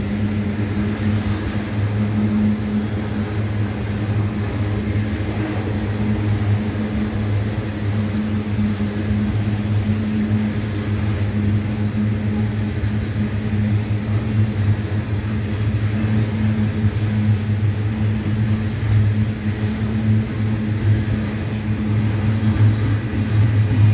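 Freight train wagons rolling past on the rails: a steady rumble with a low hum, with no horn or sudden clanks standing out.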